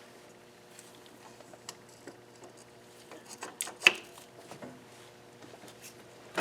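Scattered small clicks and taps of metal engine parts and tools being handled, with one sharp click just under four seconds in, over a faint steady hum.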